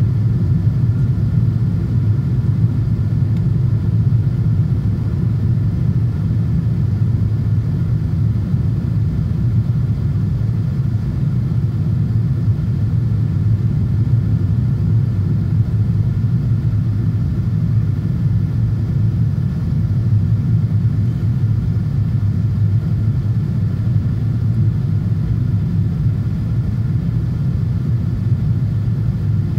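Steady cabin noise inside a Boeing 777-200ER in descent: the low, even rumble of its GE90 engines and the airflow, with faint steady tones above it.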